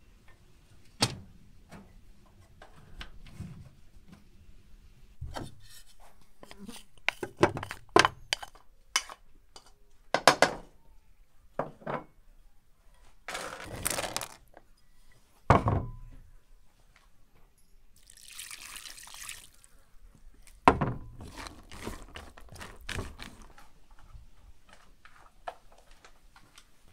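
A run of separate kitchen handling sounds: sharp knocks and clinks of dishes and utensils, dried raisins poured into a metal bowl about halfway through, a short hiss a few seconds later, and light clicks of a spoon stirring in a metal bowl near the end.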